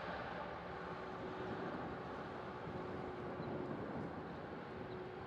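Distant jet airliner engines: a steady rumble and hiss as a Boeing 787-9 rolls out on the runway after landing, with a faint steady hum running through it.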